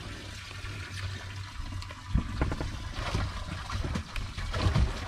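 Water splashing and sloshing, with a few sharp knocks about two seconds in and near the end.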